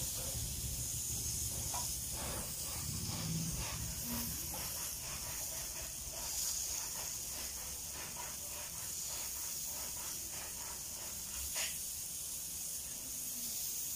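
Pork pieces sizzling on a wire grill grate over hot charcoal: a steady hiss with fine crackling. There is one short click near the end.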